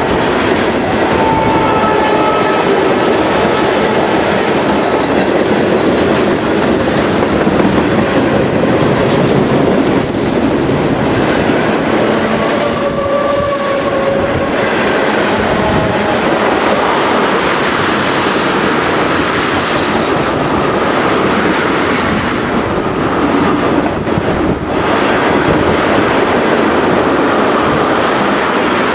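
Freight train of tank cars and covered hoppers rolling past close by, wheels clattering steadily over the rails, with a few brief squeals of wheel on rail.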